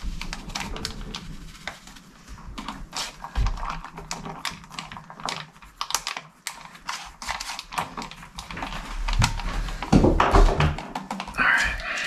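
Paper-and-foil instant coffee stick packets crinkling and rustling as they are torn open and emptied into a metal camp pot: a dense, irregular run of small sharp crackles. A louder burst of handling noise comes near the end.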